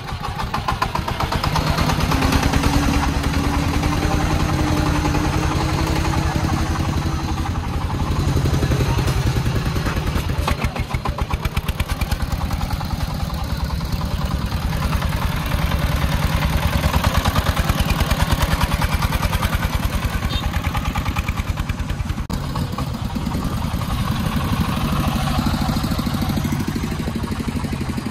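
The 24-horsepower single-cylinder diesel engine of a three-wheeled công nông truck, loaded with sand, running under way with rapid, even firing pulses. Its pitch rises steadily for a few seconds near the start as it picks up speed.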